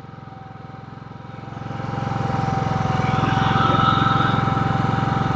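GENMAX GM9000iE gas inverter generator running while it warms up after a choked start. Its steady engine hum with a constant whine grows louder about a second and a half in, then holds steady.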